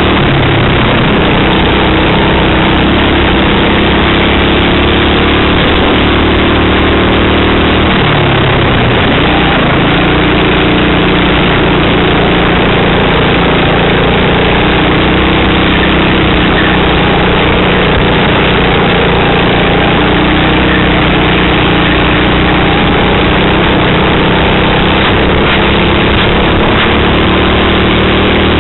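Racing kart engine running hard at race pace, heard loud and close under a steady rushing noise; its note drops at about eight seconds in and climbs again as it pulls out of the corner.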